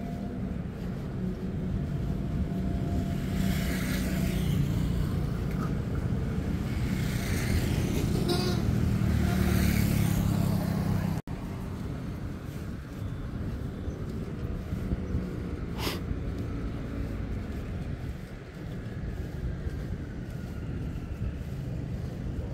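Street traffic: car engines running on the road, louder and building through the first half, then dropping off suddenly about halfway to a quieter street hum. A single sharp click comes a few seconds after the drop.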